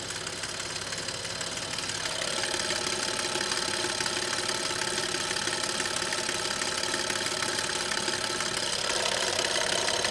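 Audi S6 engine running with a fast, steady metallic clatter that came on after hard motorway driving. The owner cannot yet say where it comes from, and later traces it to the front of the engine at the timing case. It gets louder about two seconds in and again near the end.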